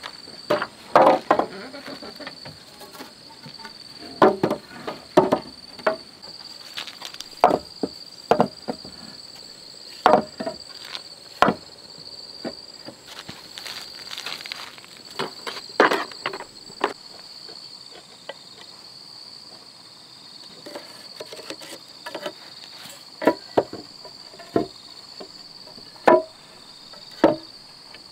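Sawn wooden boards set down and knocked against one another: a dozen or so sharp, irregularly spaced wooden clacks. Under them runs a steady high chirring of insects.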